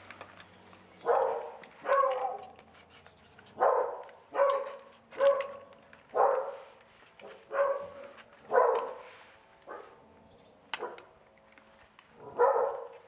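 A dog barking over and over, about ten loud barks roughly a second apart, with a few light clicks between them.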